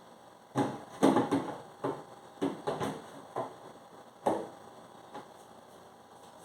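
Hard objects knocking and clattering as they are handled: a quick, uneven run of about eight knocks over three and a half seconds, then one faint knock.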